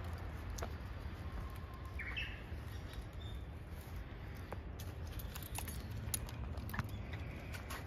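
Japanese bush warbler singing once: a held low whistle about a second in, breaking into a quick higher flourish, with scattered light clicks and ticks around it.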